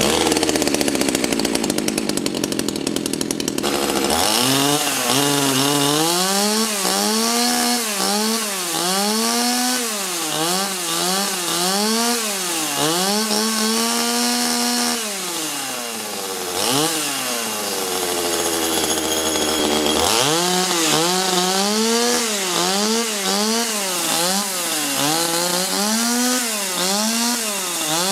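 Small two-stroke chainsaw engine running loud from the first instant. From about four seconds in it revs up and down over and over, settles at a lower speed for a few seconds past the middle, then revs up and down again.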